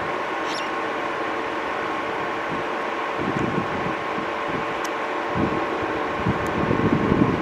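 Steady jet engine noise from an Airbus A220-300's Pratt & Whitney PW1500G turbofans, a constant rush with two steady tones, with low gusts of wind buffeting the microphone now and then.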